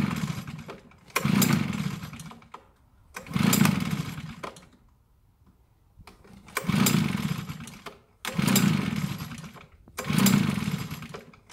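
Echo PB-770T backpack blower being pull-started: six pulls on the recoil starter, each a short burst of the two-stroke engine turning over and fading away, with a pause of about two seconds midway. The engine does not stay running.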